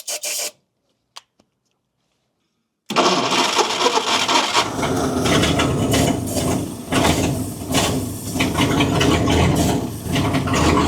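1953 Kaiser Manhattan's Continental 226 flathead six being started: the starter cranks it with a rapid even beat for about half a second, then the sound cuts out, and about three seconds in the engine is running steadily to the end. The engine has just come back to life after its stuck valves were freed, still on stale old gasoline and with uneven compression across the cylinders.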